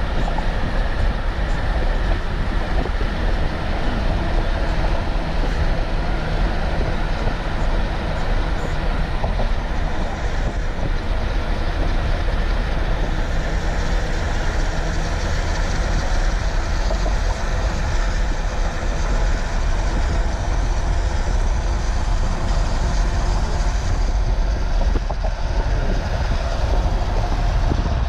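Steady road noise of a car driving at speed: a continuous low rumble with tyre and wind hiss over it.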